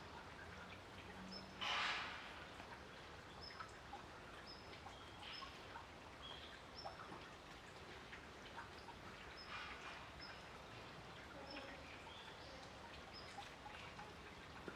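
Faint outdoor background with short high bird chirps about once a second, and a brief noisy burst about two seconds in.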